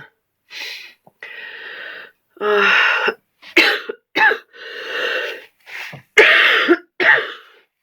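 A woman coughing in a fit of about eight rough coughs of uneven length, with breaths drawn in between. It is the cough of a flu with a cold and fever.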